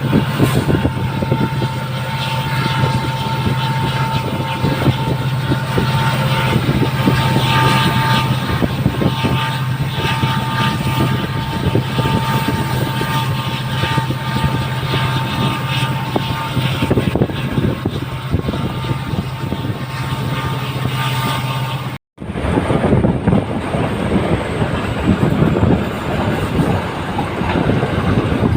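Passenger train running behind a WDP-4D diesel locomotive: the steady low hum of its EMD 16-710 two-stroke engine, with a constant higher whine, over the rushing, rattling noise of the moving train. About 22 s in the sound cuts out for an instant, and afterwards only the rougher running noise of the train remains, without the engine hum.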